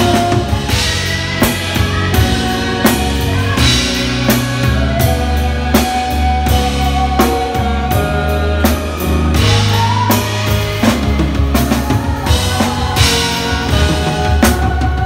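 Live band music: a drum kit keeps a steady beat with bass drum, snare and cymbals, over bass guitar and other sustained pitched instruments.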